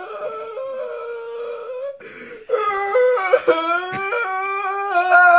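A man's voice making long, wordless, high-pitched tones, holding each note and stepping up or down between them. There is a short break about two seconds in and a sharp click near four seconds.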